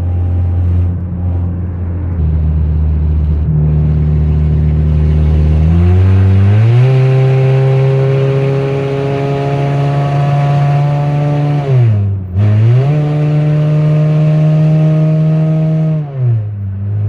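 2004 Honda CR-V's four-cylinder engine running loud through an exhaust with its catalytic converter stolen, under way: the revs climb and hold high, dip sharply for a gear change about twelve seconds in, climb again, then fall away near the end.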